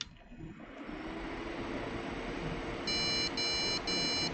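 ASRock B75M motherboard powered on: a click, cooling fans spinning up to a steady hum, then the board's beeper sounding a run of short, evenly spaced high beeps from about three seconds in. The beeping is the board's warning for its no-display fault, which the POST card reads as error D6.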